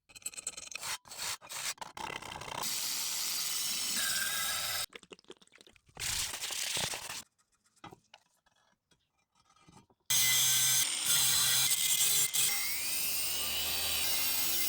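Clicks and scraping on a rusty metal hoe head come in short, separate bursts, with a quiet gap in the middle. About ten seconds in, a power tool starts running steadily.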